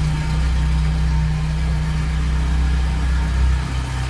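VW AP 1.8 four-cylinder engine idling steadily and smoothly, with no belt noise: the squeal from the worn accessory-belt tensioner is gone now that a new tensioner is fitted.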